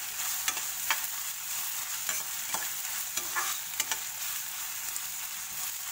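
Chopped onion, capsicum and green chillies sizzling in ghee and oil in a kadhai, with a metal spatula scraping and knocking against the pan as the vegetables are stirred, a stroke every half second to second.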